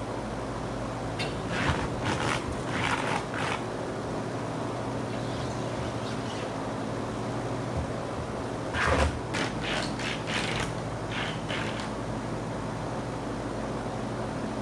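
ZIP System seam tape being pulled off its roll in a handheld dispenser and pressed onto a sheathing seam, heard as two spells of short raspy peeling sounds, the first about a second in and the second past the middle. A steady low hum runs underneath.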